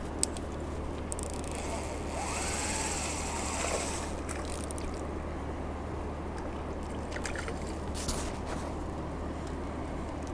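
Water splashing and trickling as a hooked crucian carp is landed at the water's edge, loudest from about two to four seconds in, with a few light clicks of handling.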